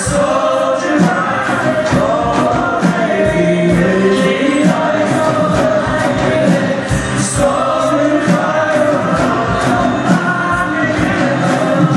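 Live folk band playing: voices singing a held, chant-like line over a steady beat on a dhol drum, with guitar and double bass.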